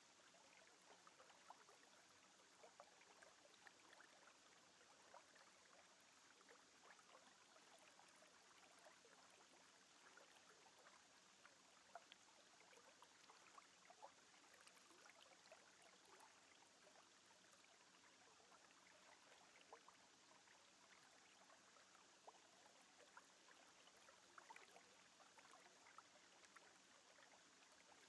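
Near silence: a faint steady hiss with scattered soft crackles.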